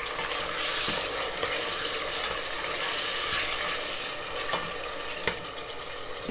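Chopped tomatoes sizzling in hot oil in a pot while a wooden spoon stirs them, with a couple of light knocks near the end.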